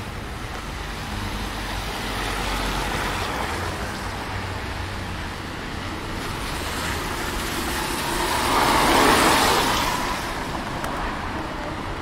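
Street traffic on a wet road: a steady low rumble with tyre hiss swelling as vehicles pass, the loudest pass about nine seconds in.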